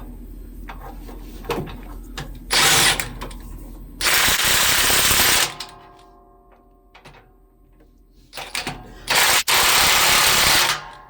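Snap-on impact wrench hammering U-bolt nuts tight on a semi trailer's suspension: three loud bursts, the second and third about a second and a half long, with light metallic clicks in between.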